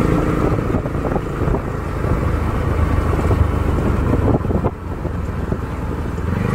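Bajaj Pulsar NS200's single-cylinder engine running through a custom exhaust while riding, with a bassy note. The note turns choppy and uneven through the middle, dips briefly about four and a half seconds in, then settles into a steady pitched drone again near the end.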